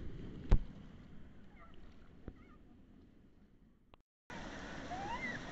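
Rushing, splashing water as an inner tube shoots out of a water slide into the splash pool, fading away over a few seconds, with a sharp knock about half a second in. After a brief break, a steady wash of water noise returns.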